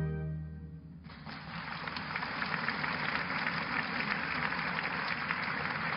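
A last held orchestral chord dies away. About a second in, audience applause starts and runs on steadily: many hands clapping in a theatre.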